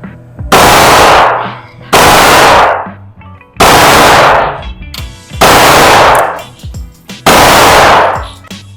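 Pistol fired five times at a slow, even pace, a shot about every one and a half to two seconds, each crack followed by a short echoing tail.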